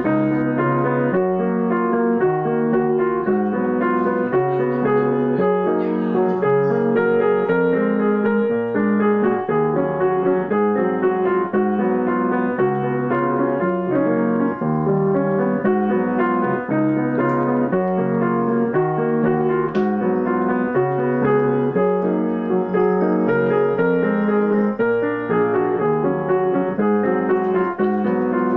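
Piano music playing steadily as a continuous stream of notes in a repeating pattern.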